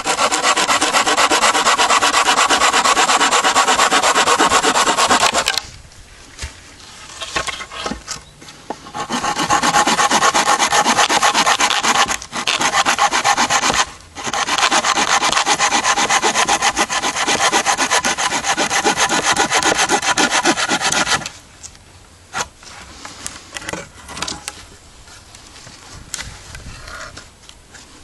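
Folding hand saw cutting through a bark-covered branch with fast back-and-forth strokes. The sawing comes in runs, with a pause about six seconds in and brief breaks around twelve and fourteen seconds. It stops a little after twenty seconds in, leaving only faint handling sounds.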